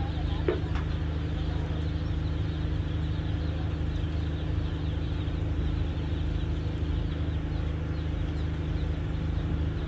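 Berthed fast ferry's diesel engines idling, a steady low drone. A brief knock comes about half a second in.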